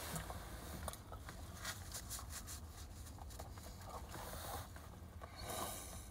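Close-up mouth noises of a person chewing food: many quick small wet clicks. Two short hissing sounds come near the end.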